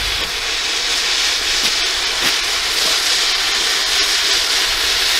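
Steady hiss of steam and smoke venting from the open engine bay of an overheating Volvo 940, whose exhaust system is glowing hot, over a low rumble.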